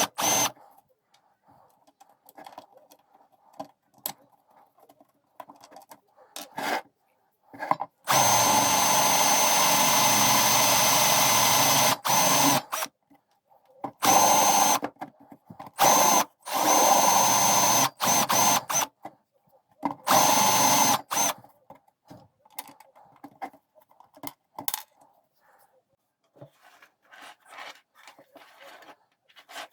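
Electric power drill running in separate bursts: one run of about four seconds, then several shorter runs of a second or two, each starting and stopping abruptly, with faint handling noises in between.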